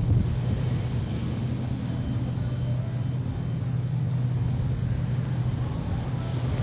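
Strong wind rumbling on the microphone over a steady low machinery hum.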